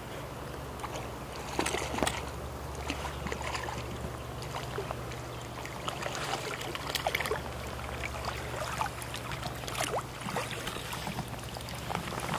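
Creek water lapping and trickling around a wading angler, broken by short splashes as a hooked trout thrashes at the surface while it is played toward the net. A steady low hum runs underneath.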